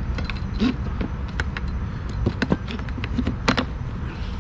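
Metal tube legs of a folding table being fitted into place: a handful of sharp clicks and clanks, the loudest about halfway and near the end, over a steady low rumble.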